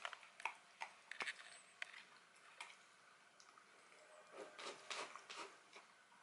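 Dachshund eating from a ceramic bowl: faint, sharp crunching clicks of chewing for the first two seconds or so, a lull, then a run of softer eating noises about four to six seconds in as its muzzle goes back into the bowl.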